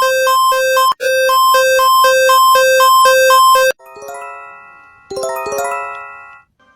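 Electronic emergency alert tones: a two-tone alarm alternating between a low and a high beep about twice a second, stopping abruptly after nearly four seconds. It is followed by a ringing electronic multi-note chime, played twice.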